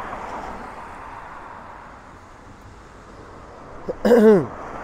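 A man's brief wordless vocal sound, like a throat clear, dropping in pitch about four seconds in, over steady outdoor background noise.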